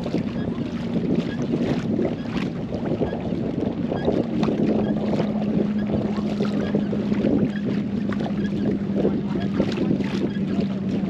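Fishing kayak under way on a lake: water splashing along the hull and wind buffeting the microphone, over a steady low hum that settles onto one pitch about four seconds in.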